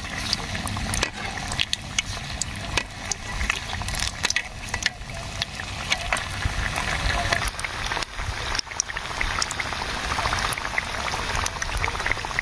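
Momos frying in hot oil in a pan: a steady sizzle with many small spattering pops.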